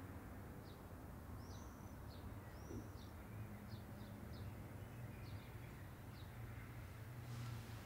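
Faint bird chirps: a string of short high notes and two arching whistled notes, over a low steady hum of room tone. A brief soft hiss comes near the end.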